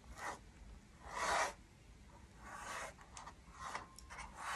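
Paintbrush strokes scratching across the painting surface: about five separate short, dry rasping swishes, irregularly spaced.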